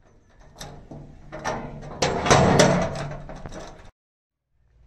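A padlock being unlocked and worked free of the hasp on a steel door, with small clicks and rattles. About two seconds in, the metal door leaves are pulled open with louder clanking and scraping, the loudest part. It cuts off suddenly near the end.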